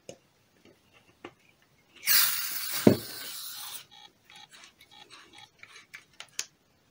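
Aerosol can of foam-gun cleaner being screwed onto a polyurethane foam gun's adapter: about two seconds in, a hiss of escaping spray as the valve opens, with a knock in its middle, amid small clicks and taps of metal parts being handled.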